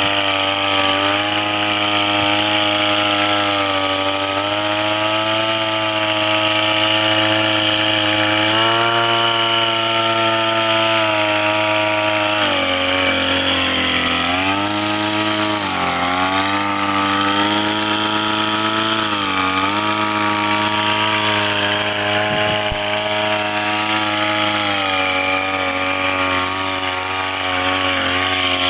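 Small engine of a motorized crop sprayer running steadily at high speed. Its pitch sags and recovers several times around the middle, then settles again.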